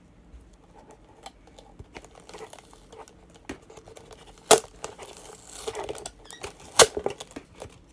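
Crinkling and clicking of a plastic bottle and duct tape being handled, with two sharp knocks, one about four and a half seconds in and one near seven seconds.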